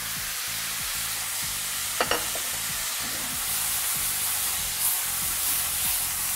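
Goat meat and freshly added chopped tomatoes sizzling in a non-stick frying pan on a gas burner as the pan is tossed and stirred. A sharp clack about two seconds in.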